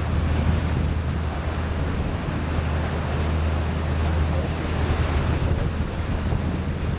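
Open canal tour boat under way: its engine drones as a steady low hum, with water wash and wind buffeting the microphone.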